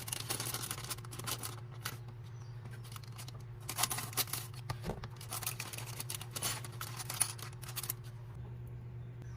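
Scattered small clicks and rustles from hands handling minifigure pieces and their packaging, over a steady low hum.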